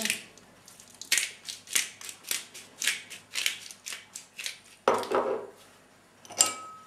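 Small hand pepper grinder twisted over a pan: a quick run of gritty crunching grinds, about three a second. Then a couple of separate knocks, a sharp one near the end.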